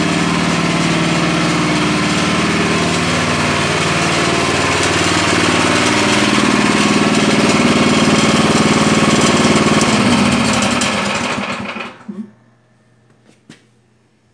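Sears Suburban garden tractor engines running steadily after a cold start, warming up on fresh fuel. Near the end they are switched off at the ignition and wind down to a stop, followed by a faint click.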